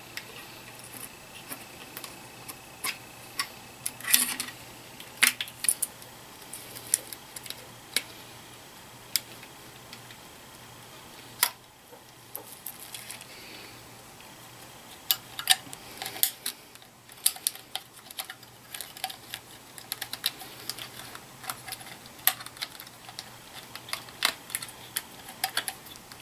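Scattered small plastic clicks, taps and rattles as wire connectors are unplugged and a wiring harness is handled inside a Stellant contrast injector head. The clicks come in short clusters over a faint steady low hum.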